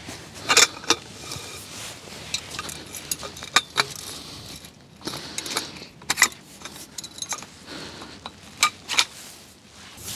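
Metal awning poles being handled and fitted together: irregular sharp clicks, knocks and rattles.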